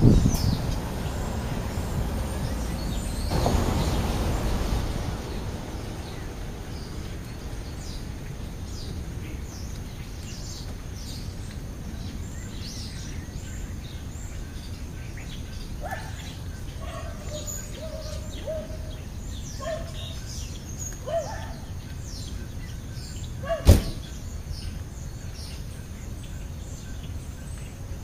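Vultures' wings flapping as they take off from the ground, loudest at the start with another rush a few seconds later. After that comes a steady outdoor background with faint bird chirps, then a single sharp knock of a vehicle door shutting near the end.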